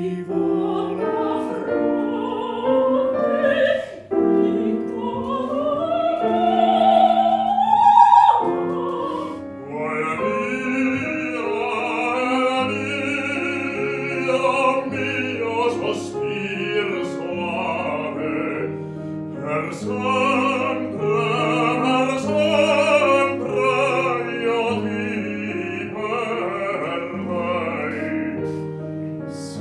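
Operatic singing with piano accompaniment. First a female voice slides up to a high held note; after a short break about eight seconds in, a male voice sings an aria over the piano.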